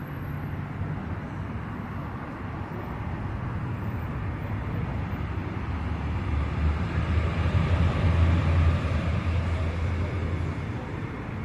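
Street traffic noise with a motor vehicle passing: a low rumble that swells to its loudest about eight seconds in, then fades.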